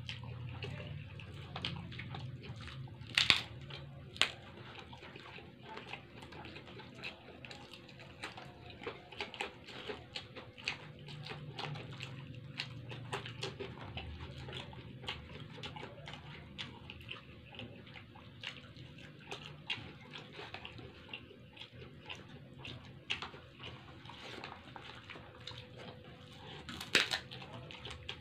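Close-up hand-eating sounds: fingers mixing and scooping rice in brown paper wrappers, with wet chewing and mouth sounds and a steady patter of small paper crackles. A few louder sharp crackles stand out, about three seconds in, a second later, and near the end.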